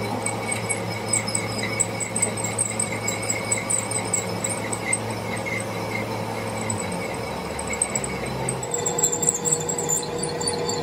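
Metal lathe running while a twist drill bores through the centre of a gear held in the chuck: a steady low machine hum with a high chirping squeal from the cutting that repeats several times a second. The hum changes about two-thirds of the way through.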